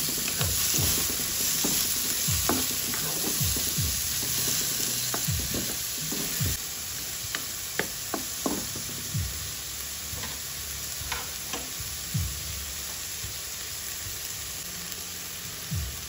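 Chopped onion sizzling in hot oil in a nonstick wok while a wooden spatula stirs it, scraping and knocking against the pan. The sizzle drops somewhat about six seconds in, and the spatula knocks thin out in the last few seconds.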